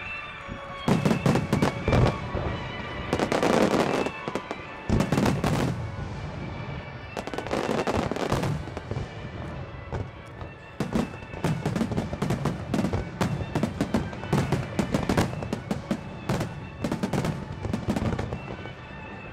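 Aerial fireworks shells bursting and crackling in rapid, dense volleys, with music playing underneath.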